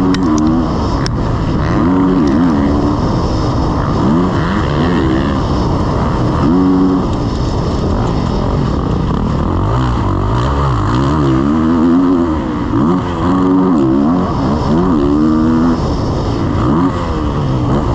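Motocross bike's single-cylinder engine heard from onboard, revving up and dropping back again and again as the throttle is opened and closed around the track.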